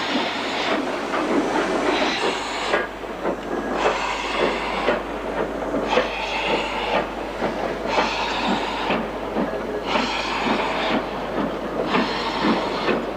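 Steam locomotive working slowly past, with long exhaust chuffs of hissing steam about every two seconds over a steady clanking of its motion and wheels.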